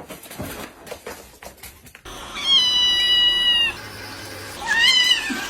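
A cat meowing twice: a long, steady, high-pitched meow, then about a second later a shorter one that rises and falls.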